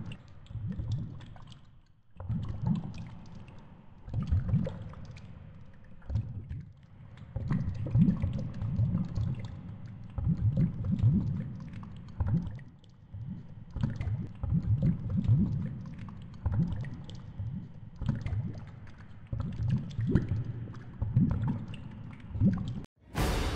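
Underwater sound picked up through a GoPro's waterproof housing hanging on a fishing line at depth: low rumbling surges of moving water every second or two, with scattered light knocks and clicks. Music starts near the end.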